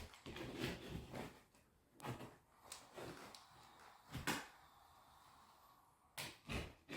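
A knife cutting around a hole in drywall, a series of short, separate scraping strokes.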